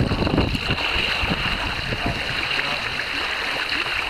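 Water rushing and splashing along the hull of a Beneteau Platu sailboat under way, its bow wave breaking beside the boat in a steady, unbroken rush.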